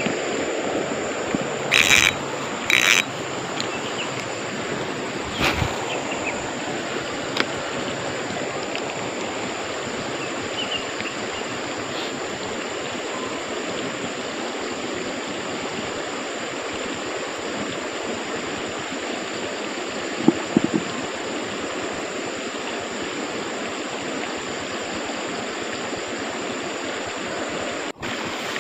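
Steady wash of a stream's flowing water, with two short, louder knocks about two and three seconds in.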